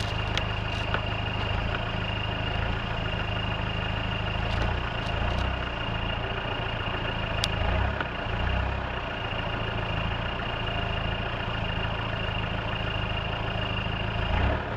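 Mitsubishi Pajero's engine idling steadily, with a slight swell in level about eight seconds in and again near the end.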